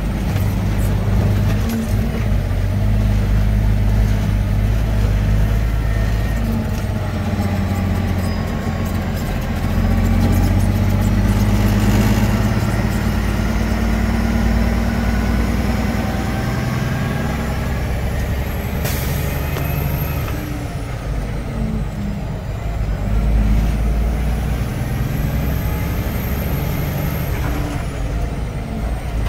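Diesel engine of a semi truck loaded with barley, heard from inside the cab, pulling under load with its pitch stepping up and down as it shifts through the gears. There is a brief hiss of air about two-thirds of the way through.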